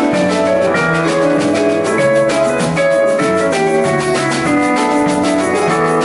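Live band music: a drum kit keeping a steady beat under acoustic guitars and keyboard.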